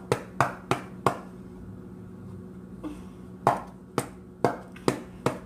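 Green seaweed slime being squeezed and poked by hand, giving sharp clicking pops: four about a third of a second apart, a pause of about two seconds, then another run of about five.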